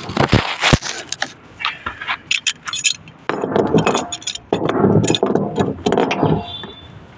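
Metal clinking and scraping, with a few sharp knocks near the start and two longer stretches of scraping in the middle.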